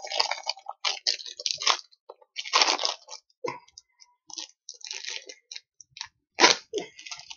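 Plastic candy bag crinkling and rustling in the hands in short irregular bursts with small clicks as it is worked and cut open with a small blade.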